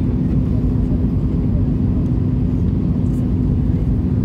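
Airbus A320 cabin noise on approach: a steady low rumble of engines and airflow with one steady drone running through it.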